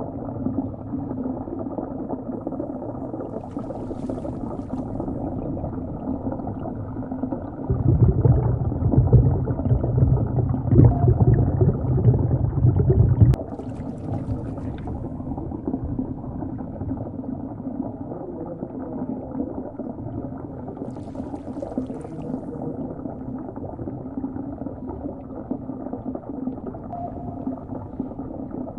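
Sea ambience sound effect: muffled, steady gurgling and bubbling water. A louder low rumble joins about 8 seconds in and cuts off suddenly about 13 seconds in.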